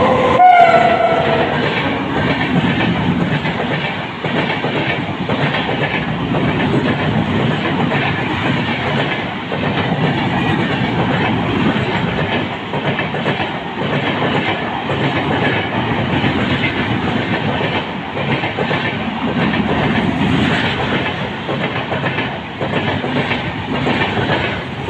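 Express train, hauled by an electric locomotive, passing a platform at speed without stopping. Its wheels clatter steadily over the rail joints as the coaches go by. A short high tone sounds about half a second in.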